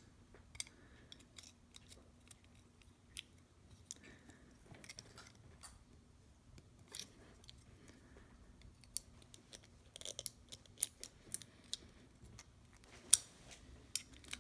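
Small scattered clicks and scrapes of a screwdriver tip prying a clear plastic window insert out of a 1/64 scale die-cast car body, with a cluster of clicks about ten seconds in and the sharpest click near the end.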